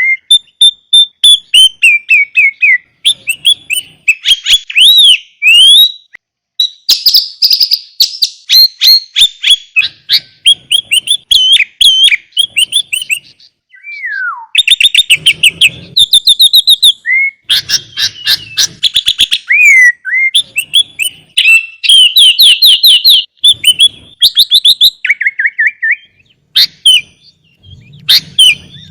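Sooty-headed bulbul (kutilang) singing energetically, in the full, busy style bird keepers call gacor: fast runs of loud chirps, whistled slurs and rapid trills with only brief pauses, as in a master recording used to train captive bulbuls to sing.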